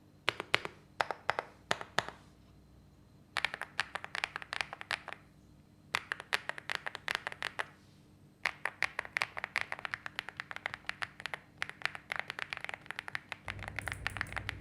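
Typing on a Leobog Hi75C Pro mechanical keyboard: rapid keystroke clacks in four bursts with short pauses between them, the last burst the longest. A low hum joins near the end.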